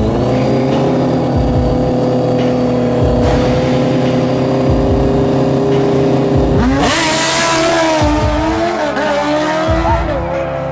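Drag-racing motorcycles, a Kawasaki Ninja ZX-14 among them, held at a steady high rev on the start line. About seven seconds in they launch with a sudden burst of noise, and the engine notes rise and fall as the bikes accelerate away.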